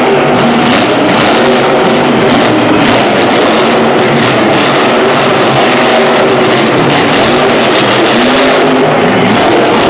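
Monster truck's supercharged V8 engine revving hard, its pitch rising and falling with the throttle, loud and continuous.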